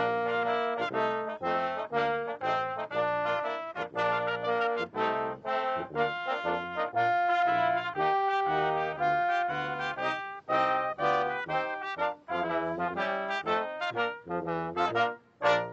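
Brass band playing a brisk piece of rapid notes, stopping on a short final note right at the end.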